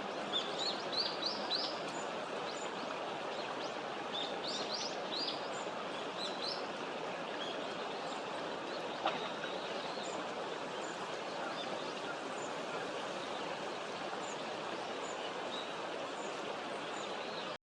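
Hawfinch calling: two quick runs of short, sharp, rising high notes, the first near the start and the second about four seconds in, with a few scattered single notes later, over a steady outdoor hiss. A single click about nine seconds in.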